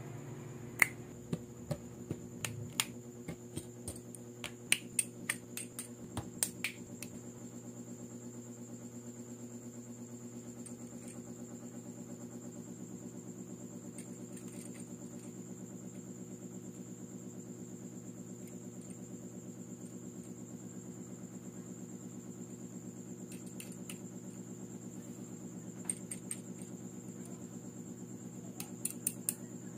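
Plastic LEGO-compatible bricks and mech parts clicking and snapping together as a figure is assembled by hand: a quick run of sharp clicks in the first seven seconds, then scattered clicks, with a short cluster near the end. A steady low hum and a faint high whine sit underneath.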